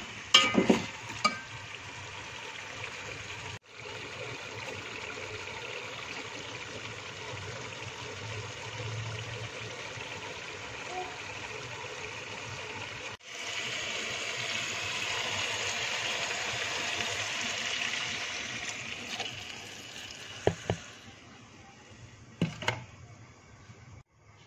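Chicken pieces frying in oil in a steel pot, a steady sizzle, with a few sharp clinks of a slotted metal spoon against the pot near the start and near the end. The sizzle grows quieter near the end.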